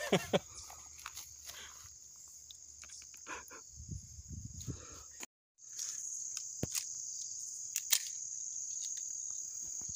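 Crickets or similar insects chirring in a steady, high-pitched drone, with a few faint clicks and knocks. The sound cuts out completely for a moment about five seconds in and comes back louder.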